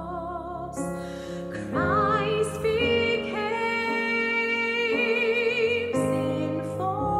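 A woman singing a slow hymn with vibrato over digital piano chords. A new sung phrase begins about two seconds in and rises to a long held note.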